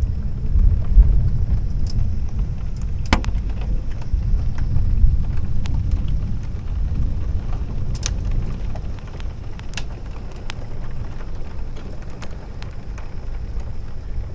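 Thunder rolling in a long, low rumble, heaviest in the first half and slowly easing, with scattered sharp ticks of heavy rain striking the window.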